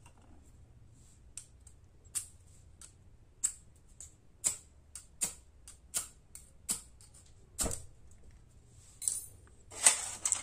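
Hand-held fire starter struck again and again over a small spirit (alcohol) burner to light it: a dozen or so short, sharp scraping clicks, roughly one every half second to second. Near the end comes a louder metallic clatter as the aluminium windscreen is handled.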